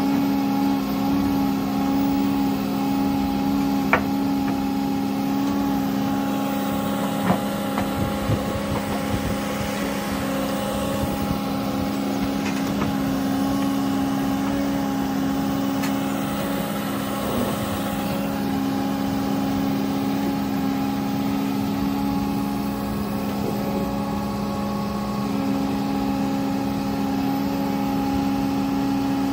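Menzi Muck M535 spider excavator's diesel engine running steadily, with a few short knocks in the first third.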